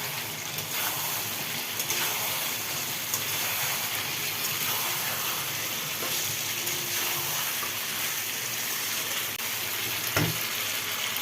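Pre-fried chicken pieces sizzling steadily in a pan of spiced onion-tomato masala, with a few sharp clicks now and then.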